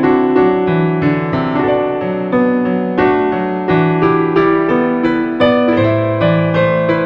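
Background piano music: a steady run of single notes over chords, each note struck and fading.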